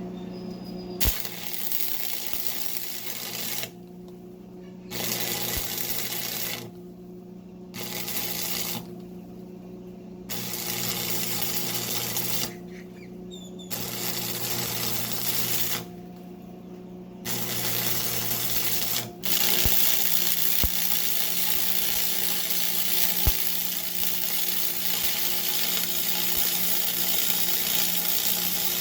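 Stick welding with a 1/8-inch 7014 rod: the arc crackles and hisses in short runs broken by several pauses as the welder stops and restarts, then burns steadily through the last third, filling a wide gap. A steady electrical hum from the welding machine runs underneath.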